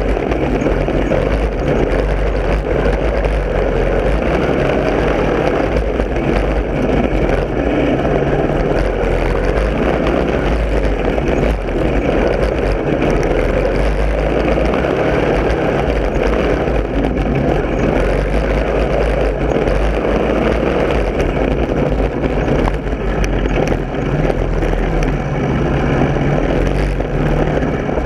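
Lawn mower engine running steadily, without a break.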